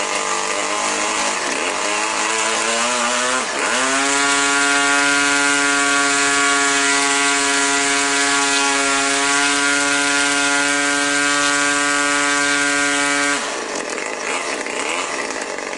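RCGF 20cc single-cylinder two-stroke gasoline model airplane engine running near its top speed of about 8,500 rpm, turning a 16x8 propeller. The note wavers for the first few seconds and dips briefly, then holds a steady high pitch for about nine seconds before wavering again near the end.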